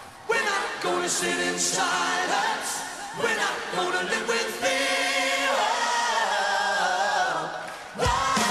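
A group of voices singing a cappella in close chords, the chords changing every second or so at first, then held as long notes, stopping near the end.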